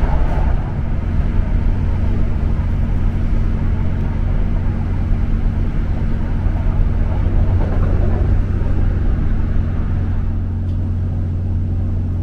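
Interior running noise of a British Rail Class 769 train in motion: a steady low hum with rumble underneath.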